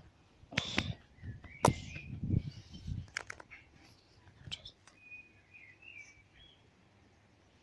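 Rustling handling noise from a handheld phone with several sharp clicks in the first few seconds, then fading. Faint bird chirps sound briefly past the middle.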